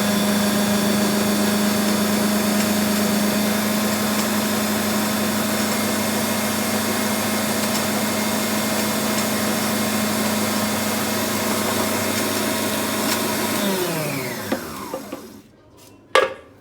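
Electric kitchen machine's motor running steadily as it mixes the tart dough after the egg yolks go in, then switched off about 14 seconds in, its pitch falling as it spins down. A single sharp click follows near the end.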